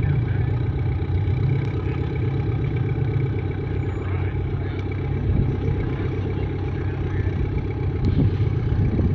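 Rock-crawling buggy's engine idling steadily.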